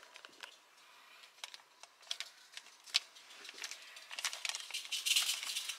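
Foil and paper coffee and tea sachets crinkling and rustling as a hand picks through them in a small box, with scattered light clicks and ticks. The crinkling is densest near the end.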